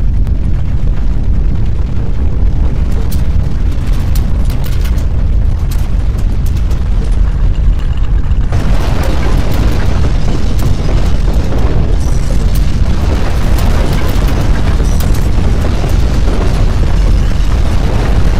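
Deep, continuous earthquake rumble with rattling and clattering over it, growing fuller and louder about eight and a half seconds in as the strong shaking builds.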